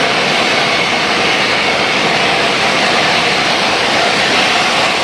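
Steady, loud hiss and hum of trains at a station platform, without separate beats or chuffs. Faint steady tones sit in the noise.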